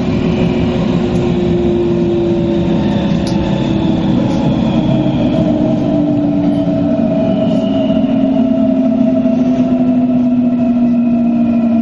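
Hamburg S-Bahn electric train heard from inside the carriage: steady rumble of wheels on rails under a motor whine whose pitch falls slowly and evenly as the train slows.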